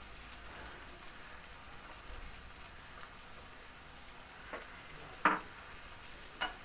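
Mola carplet fish and potato strips frying in mustard oil in a nonstick kadai, with a faint, steady sizzle. Three short knocks come in the second half, the loudest about five seconds in.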